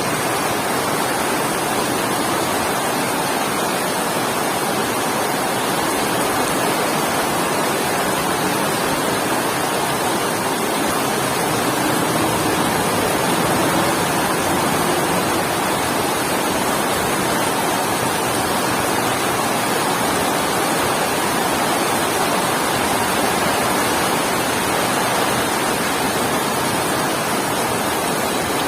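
Heavy rain falling steadily, an even wash of noise with no thunder.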